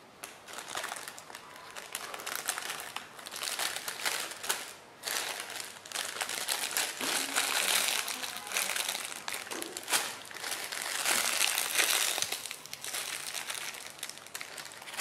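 Crinkling and crumpling from handling and squeezing squishy toys. It comes in waves of a few seconds each, with short lulls about five and ten seconds in.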